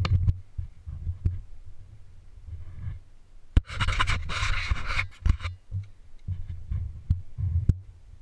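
Heavy breathing of an injured, winded motocross rider picked up by his helmet-mounted camera after a hard crash, over an uneven low rumble and scattered knocks from the helmet and mic moving. A harsh rush of noise about four seconds in lasts under two seconds.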